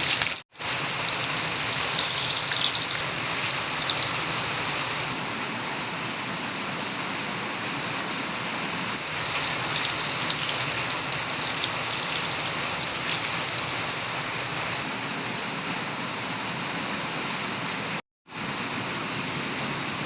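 Smoked milkfish frying in hot oil: a steady sizzle with fine crackling, louder and more spattery in stretches, broken twice by a sudden brief dropout, once near the start and once near the end.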